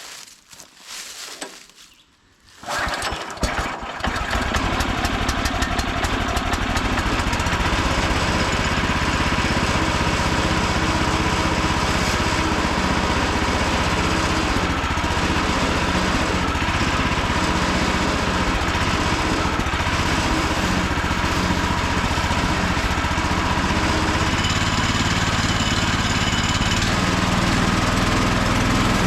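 Woodland Mills HM126 sawmill's Kohler 14 hp single-cylinder petrol engine starting on a single recoil pull about two and a half seconds in, then running steadily. It is a cold start on old fuel after 18 months of sitting untouched.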